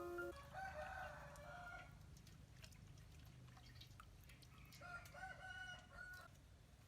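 A rooster crowing faintly twice, one crow near the start and another about five seconds in, each lasting about a second and a half.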